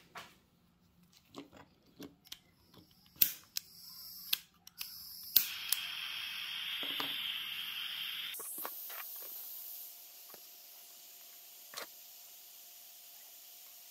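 Butane soldering iron snapping alight about five seconds in, then hissing steadily as the gas burns at its heat-shrink tip; after about three seconds the hiss becomes thinner and higher and stays on. Before that, a few light clicks and taps as wires and tools are handled.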